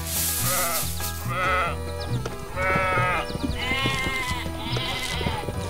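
Sheep bleating about five times in short, quavering calls over cheerful background music with a steady bass beat, with a brief noisy whoosh at the very start.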